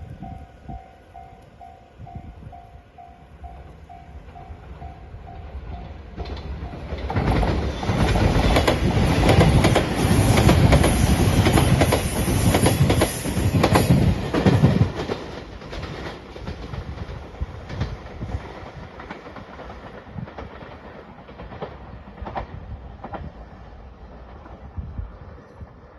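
Level-crossing warning bell ringing about twice a second. It stops about six seconds in, as a Shiokaze electric limited express train passes. The wheels clickety-clack loudly over the rail joints for about eight seconds, with a high whine above, before the sound fades away.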